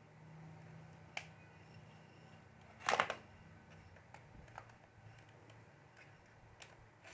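Small clicks and a short clattering rattle of plastic and metal as a ThinkPad Z61t laptop is handled and taken apart, with the loudest clatter about three seconds in.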